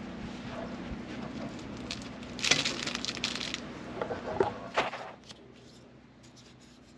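Objects being handled on a tabletop: a burst of rattling and clinking about two and a half seconds in, then a few sharp knocks, as grill accessories are picked up.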